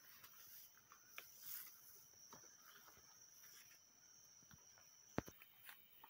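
Faint, steady high-pitched insect trill that cuts off suddenly about five seconds in, with soft footsteps on a forest path. A sharp click comes just before the trill stops.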